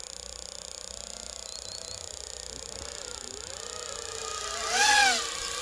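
FPV quadcopter's motors whining, the pitch rising and falling as the throttle changes, swelling to its loudest with a rise in pitch about five seconds in.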